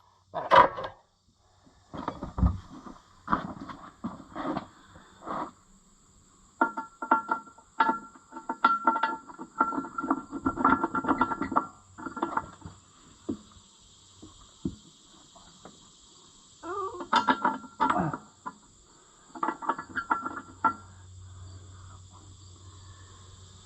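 Irregular metal clinks and clanks, some of them ringing, as bolts are worked through a tractor's rear wheel rim and center. A steady insect chirping runs underneath from about halfway through.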